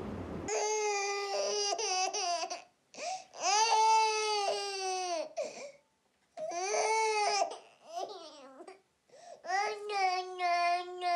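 A baby crying: a series of long, wavering wails of a second or two each, with short breaks for breath between them.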